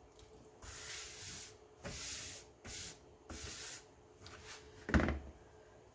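Four short hissing, scratchy rubs, then a sharp knock about five seconds in, as the twine-wrapped plastic planter is handled while its glued twine end is held down.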